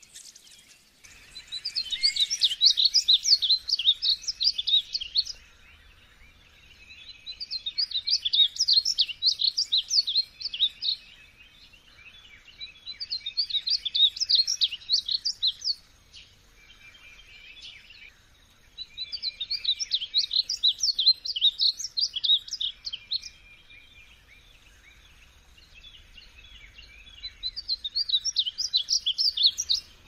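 Male painted bunting singing: five bursts of rapid, tumbling warbled notes, each about three to four seconds long, with pauses of a few seconds between them.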